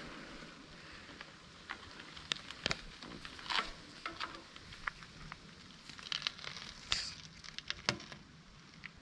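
Irregular crackles and clicks over a faint hiss, as of someone moving through leafy undergrowth, brushing and stepping on plants and twigs.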